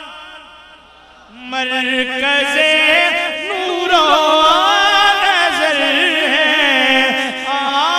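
A voice singing an Urdu devotional song (naat) in long, drawn-out ornamented notes without clear words. A phrase dies away at the start, and after a short lull the singing comes back in about a second and a half in.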